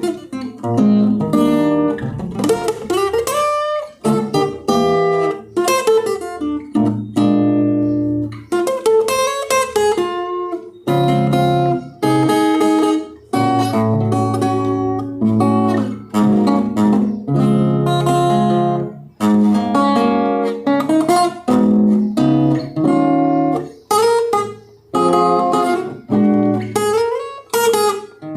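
Acoustic guitar playing, strummed chords mixed with picked single notes, some of them bent or slid in pitch.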